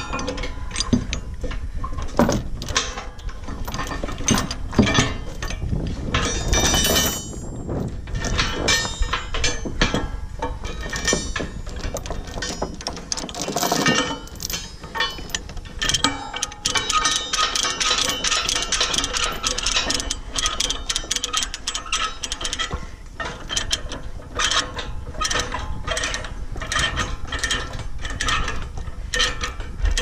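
Ratchet chain binder cranked by hand, its pawl clicking over and over in quick runs as it takes up the tie-down chain. The chain is just beginning to pull tight.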